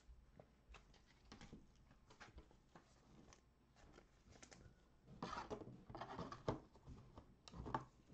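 Faint rustling and clicking of trading cards and foil pack wrappers being handled, with louder crinkling bursts about five seconds in and again near the end.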